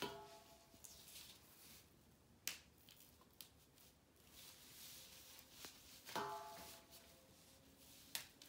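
Faint rustling and sharp snaps of pumpkin vine stems being broken and peeled of their stringy skin by hand. A stainless steel bowl rings briefly twice, at the very start and about six seconds in.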